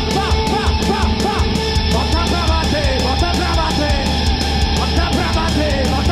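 Heavy rock band playing live: electric guitars and bass over a fast, steady drumbeat, with short sliding notes over the top.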